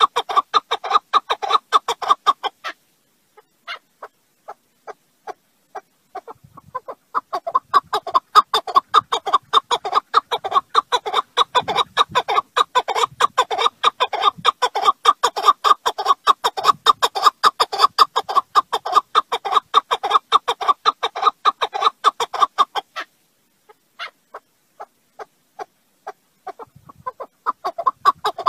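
Partridge calling: fast runs of short, repeated call notes, many per second, that thin out to scattered single notes about three seconds in and again about twenty-three seconds in, then pick up again.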